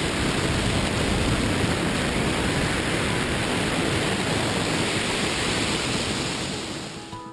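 Freefall wind rushing over a camera's microphone during a tandem skydive: a steady noise that fades away near the end.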